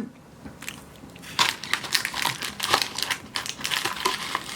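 Close-up chewing of a thin Oreo cookie: irregular crisp crunches that start about a second in and go on in quick, uneven bites.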